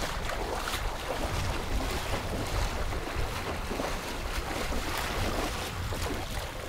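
Wind rumbling on the microphone, with water splashing and sloshing in short scattered bursts.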